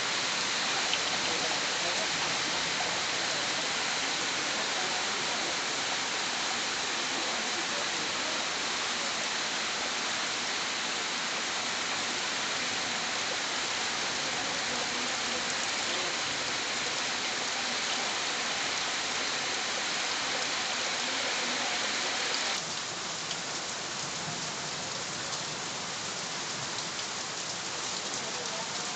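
Heavy rain falling steadily, a dense even hiss of drops. About 22 seconds in it drops abruptly to a slightly quieter level.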